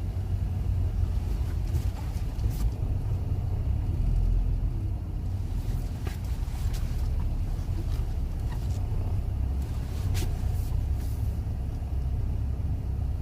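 A car being driven: a steady low rumble of engine and road noise, with a few short clicks here and there.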